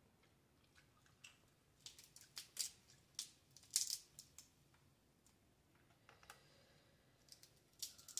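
Scattered crisp cracks and clicks as a boiled blue crab's shell is broken apart by hand to get at the meat. They come thickest about two to four seconds in, with a few softer ones near the end.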